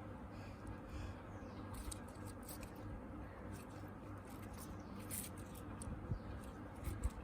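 Slime being mixed, with scattered soft sticky clicks and crackles over a low steady hum.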